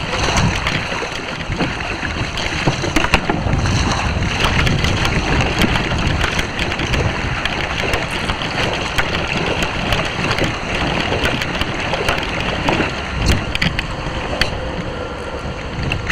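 Wind buffeting the microphone and choppy water splashing and slapping against a fishing kayak's hull, a steady rushing noise with a few light knocks.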